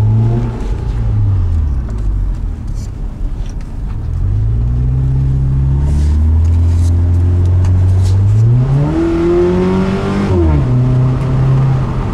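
2009 Subaru Forester 2.5X's naturally aspirated 2.5-litre flat-four, breathing through a cold air intake and dual MagnaFlow mufflers, pulling away with a deep exhaust rumble. The engine note dips at first and climbs again about four seconds in. From about eight and a half seconds it revs up hard, falls sharply at an upshift near ten and a half seconds, and settles.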